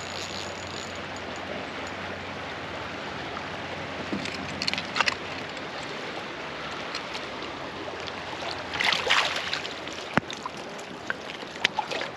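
Steady flowing water of a trout stream, with a few brief knocks over it, the sharpest about ten seconds in.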